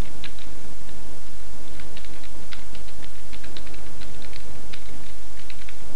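Computer keyboard keys clicking as a web address is typed, in short irregular runs of keystrokes, over a steady background hiss.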